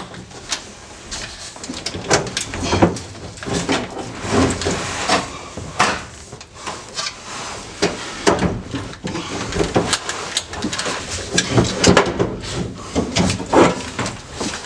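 A steering column being wrestled out of a car's stripped dash, giving repeated irregular knocks, clunks and rattles of metal and plastic.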